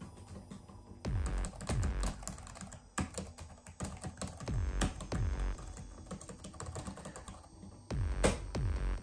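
Laptop keyboard typing in irregular runs of key clicks. Under it, a horror score of low booms that fall in pitch, coming in pairs about three times.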